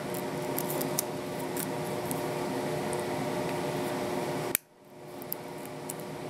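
Scissors blades clicking and scraping faintly against an aluminium soda can pull tab as it is bent and trimmed into a fish hook, a few small clicks scattered over a steady electrical hum. A sharper click comes about four and a half seconds in, and the hum drops out for a moment right after it.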